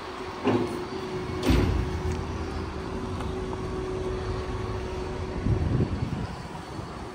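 A motor vehicle's engine running with a steady low hum, which stops near the end; a sharp click sounds about a second and a half in.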